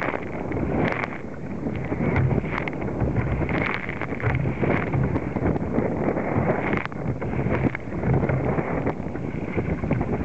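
Strong wind buffeting the microphone in low rumbling gusts, with waves slapping against a plastic kayak's bow and spray splashing over it several times.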